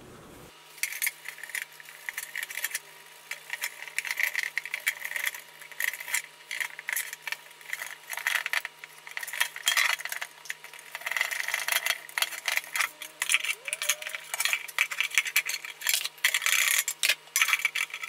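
Thin copper tea kettle clinking and ticking as its dents are pushed out by hand, a dense, irregular run of small metallic clicks and rattles as the sheet copper flexes and the kettle shifts.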